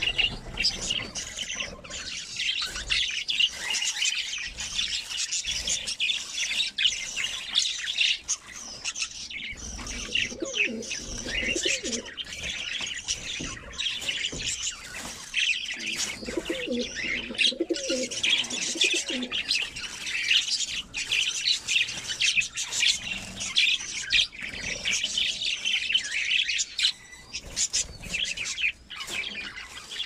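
A flock of caged budgerigars chirping and warbling without pause. A lower-pitched call comes in twice, about ten seconds in and again about seventeen seconds in.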